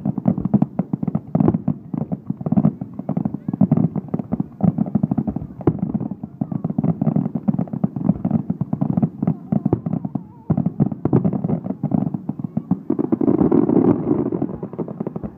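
Fireworks finale barrage: many shells bursting in rapid, overlapping bangs, several a second, with a brief let-up about ten seconds in.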